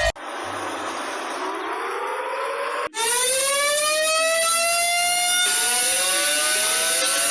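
Civil defense siren winding up, its pitch rising slowly. It drops out for a moment about three seconds in, then climbs again louder, with another rising siren tone joining a little past five seconds in.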